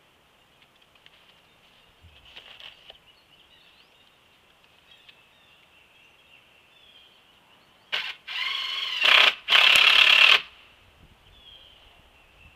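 Cordless drill run in two bursts of about a second each, with a short gap between them, its motor pitch bending as it works into the wood.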